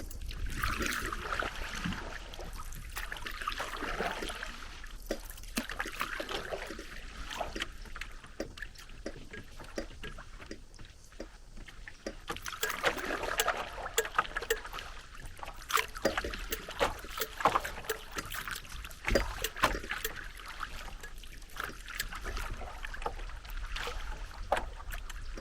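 Paddle strokes working a small paddled boat through the water, with dripping, trickling and small splashes. The water sound swells and fades with each stroke.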